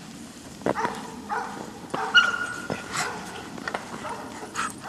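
Dogs barking and yipping, a string of short sharp barks and yelps about a second apart, the loudest a little over two seconds in.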